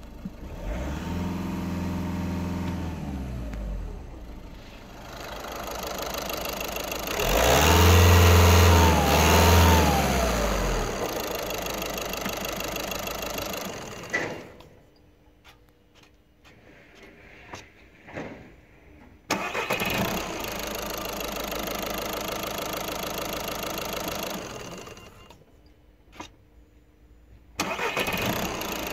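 VW 1.6 TDI (CAYC) four-cylinder common-rail diesel engine running in place: it is revved about a second in and held briefly, then revved higher twice in quick succession, then settles back to idle. The sound drops to near silence for a few seconds twice in the second half.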